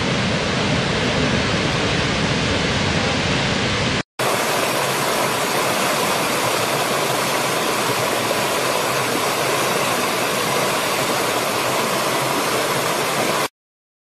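Steady rush of a large waterfall, full and deep, which breaks off about four seconds in and gives way to the lighter, brighter rush of a shallow stream running over rocks. The water sound cuts off suddenly near the end.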